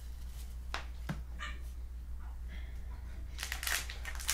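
Hands handling trading cards and the cardboard hobby box: a few light taps and scrapes, then a busier run of rustling and scuffing near the end as a hand reaches into the box. A steady low hum runs underneath.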